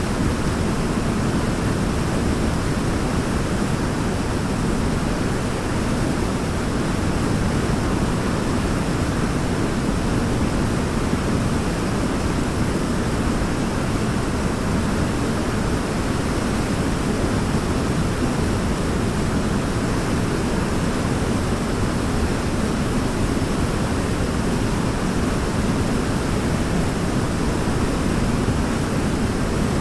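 Waterfall: water falling and splashing in a steady, unbroken rush, heaviest in the low range.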